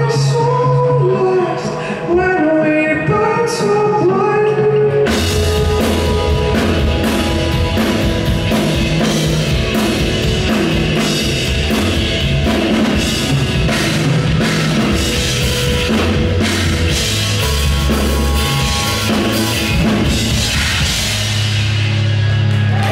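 Live progressive metal band: a sung melody over a held bass note, then about five seconds in the drums and electric guitars come in together and the full band plays loudly, heard through the venue's PA from within the crowd.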